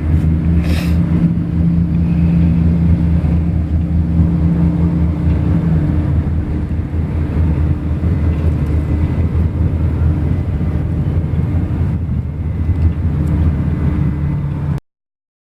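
Steady low engine drone, a constant hum that holds the same pitch, with a short hiss about a second in; it cuts off abruptly near the end.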